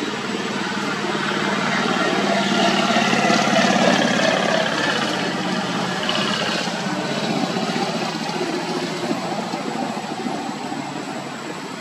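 A motor engine running with a broad hiss, growing louder to a peak about four seconds in, then slowly fading.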